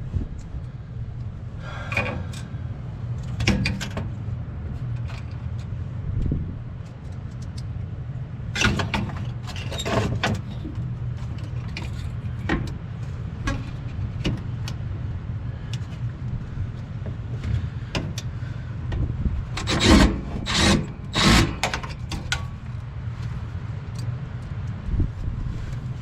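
Scattered metal clunks and scrapes as an inducer motor assembly is worked back into place inside a rooftop unit, over a steady low hum. The loudest knocks come in a cluster near the end.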